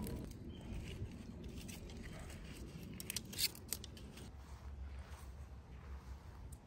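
Dry twigs and brush crackling as they are handled, with a few short sharp snaps in the middle, the loudest a little over three seconds in.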